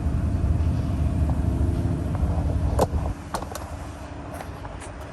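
Low, steady rumble like a motor vehicle running, which drops away about three seconds in, followed by a few light clicks and taps.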